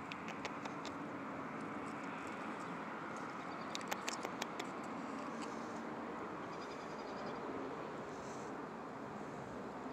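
Steady outdoor background noise, with a quick run of small sharp clicks about four seconds in.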